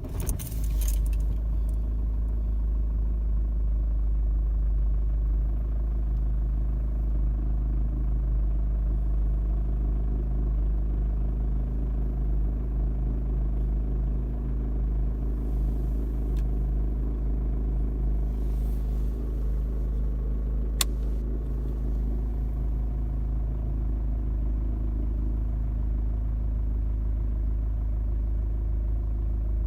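Mercedes-Benz W169 A 180 CDI four-cylinder diesel catching on a cold start and then idling steadily, with a clattering rattle that the owner puts down to the auxiliary fuel-fired heater running during the cold start.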